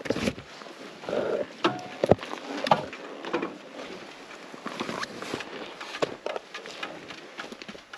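Irregular knocks, clicks and scuffs as a rider gets off a parked motorcycle and steps onto gravel, with a thump at the start and sharper clicks about two to three seconds in.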